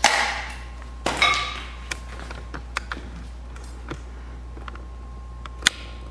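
Two short noisy bursts, at the start and about a second in, then scattered light clicks and one sharp click near the end, over a steady low hum.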